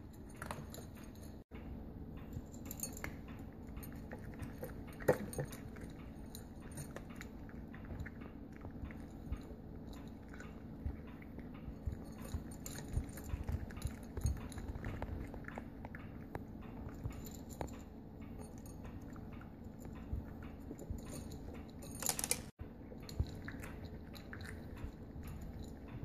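Two cats chewing and crunching dry kibble from ceramic bowls: a steady run of small crunches, with a couple of louder knocks about five seconds in and near the end.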